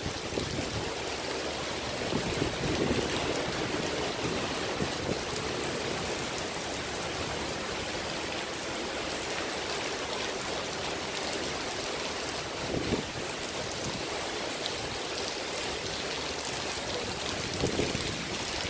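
Heavy rain pouring steadily onto wet paving and a shelter roof, with runoff streaming off the roof edge.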